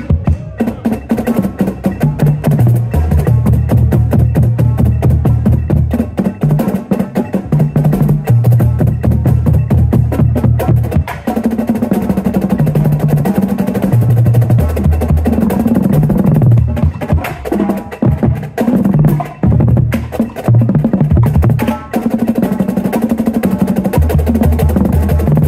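Tuned Yamaha marching bass drum line playing a paradiddle exercise: rapid sticking split across the drums, so the low booming notes step up and down in pitch, with a few short breaks between phrases.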